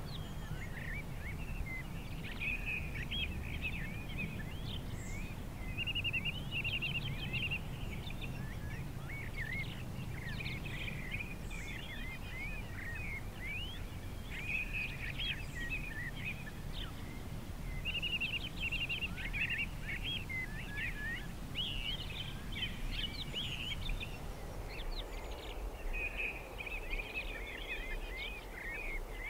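Small songbirds chirping and twittering almost continuously, several at once, over a low steady background rumble that drops away about 25 seconds in.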